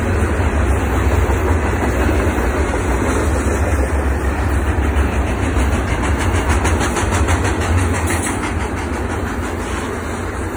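Double-stack intermodal freight train rolling past close by: a steady rumble of steel wheels on the rails, with a run of rapid, even clickety-clack through the middle.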